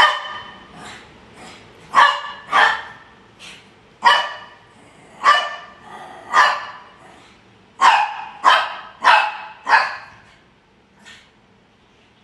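Shih tzu barking: about ten short, sharp barks at uneven intervals, with a quicker run of four near the end and a last faint one after it.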